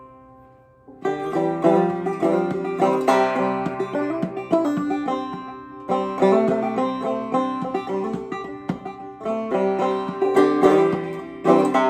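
Five-string banjo played clawhammer style: a fading ringing note gives way, about a second in, to a steady run of picked and brushed notes with a bouncing rhythm.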